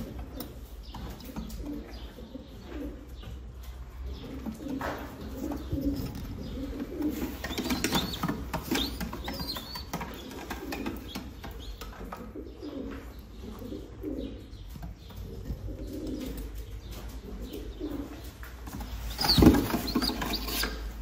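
Taklacı (Turkish tumbler) pigeons cooing over and over. Near the end there is a sudden loud flurry of wings as one bird is grabbed by hand.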